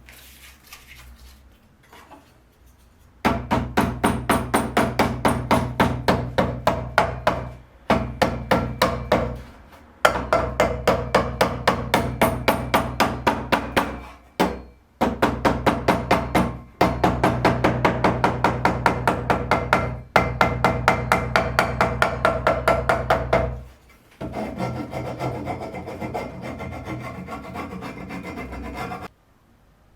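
Wood being filed or rasped by hand in fast back-and-forth strokes, about three to four a second, in several runs with short pauses between them. Near the end the strokes give way to a smoother, steadier rubbing.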